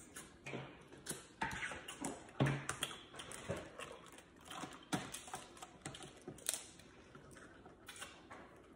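Snow crab legs being cracked and picked apart by hand with long acrylic nails: a run of irregular sharp clicks and shell cracks as the nails tap on the shells, the loudest crack about two and a half seconds in.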